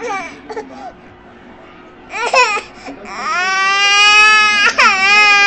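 Toddler crying: a short sob at the start, a sharp cry about two seconds in, then a long, loud wail from about three seconds in, broken once by a quick catch of breath.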